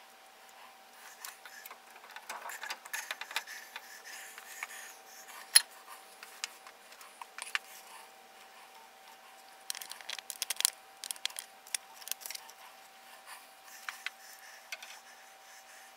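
Handling of a brass SharkBite push-to-connect fitting as it is pushed onto a half-inch copper pipe: scattered small metallic clicks and rattles, with one sharp click about five and a half seconds in and a quick run of clicks around ten to twelve seconds. A faint steady hum lies underneath.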